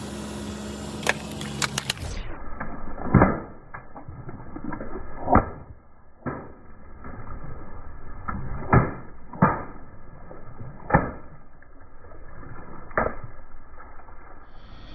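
Water balloons and twisted modelling balloons bursting under a rolling car tyre: about seven sharp pops spaced a second or two apart, with water splashing between them. A few lighter clicks come in the first two seconds.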